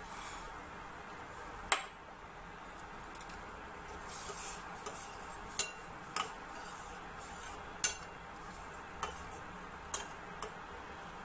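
Metal spoon clinking against a cooking pot a handful of times at irregular intervals, while milk is being added and stirred into the boiling cough remedy.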